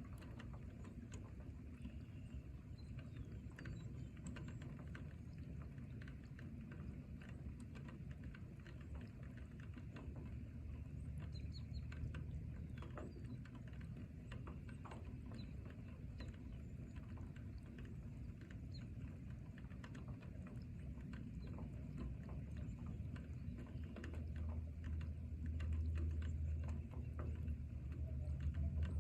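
Rain in a forest: many scattered drops pattering over a steady low rumble, which grows louder near the end.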